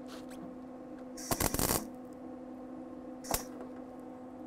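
MIG welder laying short tack welds on rusty car body sheet metal: a half-second crackling burst about a second in and a brief one near the end, over a steady hum. The welds are popping through because of the dirty, rusty metal on the back side.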